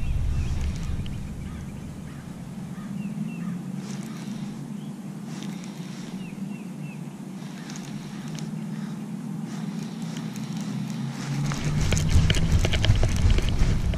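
Wind buffeting the microphone. It eases about a second in and picks up again near the end. A bird chirps in the background in short runs of two or three notes over a faint steady low hum, and a run of light clicks and rattles comes near the end.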